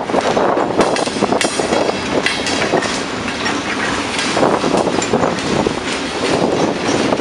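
CSX covered hopper cars rolling past on the rails: steel wheels clattering and rumbling over the track, with a faint high squeal about a second and a half in.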